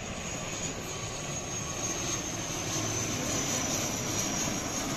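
A twin-turboprop ATR 72 airliner flying low on final approach, its engines and propellers making a steady rushing drone with a high whine that slowly drops in pitch as it passes, growing louder in the second half.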